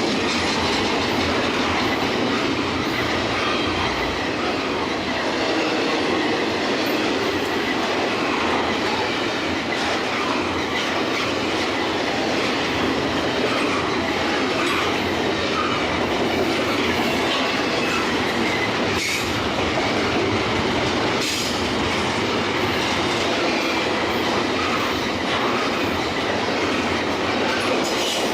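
Freight train rolling past at a steady pace: a continuous rumble of wagons with scattered clicks of wheels over the rails and a faint, wavering high squeal of wheels on rail.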